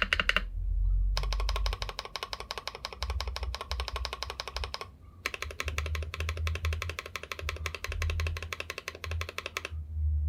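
Background music with a fast, even ticking pulse over a steady bass; it breaks off briefly twice and stops near the end.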